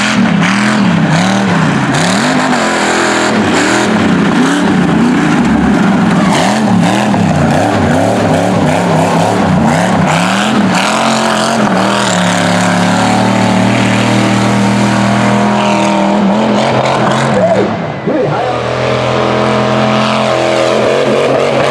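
Engine of a Cadillac Escalade-bodied mega truck under hard throttle, its revs rising and falling rapidly over and over for about the first half, then holding steadier high revs. A short dip comes near the end.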